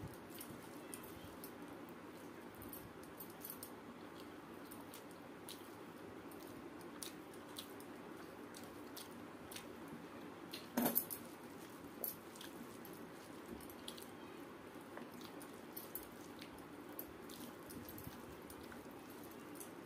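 Close-up sounds of eating rice by hand: soft squishing of rice and dal being mixed in the fingers, small clicks of glass bangles, and chewing. A louder single knock comes about eleven seconds in, with a smaller one a second later.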